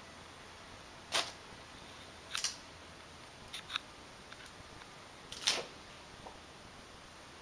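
Short crinkling rustles of a stencil sheet and painter's tape being handled and pressed onto a wall: five brief sounds spread a second or so apart, two of them in quick succession, the last the loudest.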